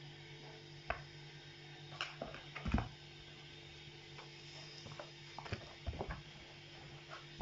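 Scattered light knocks and scuffing sounds, the loudest cluster about three seconds in, over a steady low hum.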